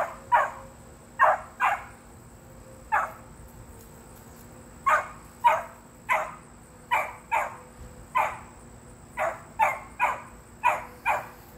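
Beagle puppies barking in short, high yips at a rabbit, young hounds giving voice on game. About sixteen barks, many in quick pairs, at an uneven pace.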